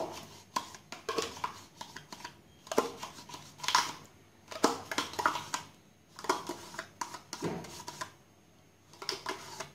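A spoon scraping and tapping inside a plastic yogurt cup as the yogurt is worked out: a series of short scrapes and clicks with brief pauses between them.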